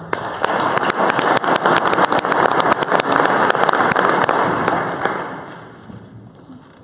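Audience applauding, many hands clapping at once, dying away about five to six seconds in.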